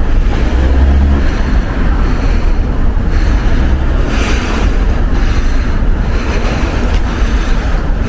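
Loud, steady rumble of wind buffeting the microphone, mixed with the road noise of a car driving, swelling briefly a few times.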